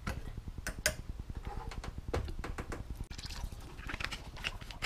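Plain water being poured from a plastic gallon jug into a car radiator's filler neck to top it off, with a few sharp clicks and knocks of handling in the first second and the pour running in the second half.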